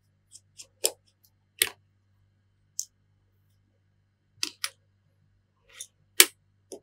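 Scattered sharp clicks and taps of small repair tools against an opened iPhone 7 and the desk, about eight in all, the loudest near the end, over a faint steady low hum.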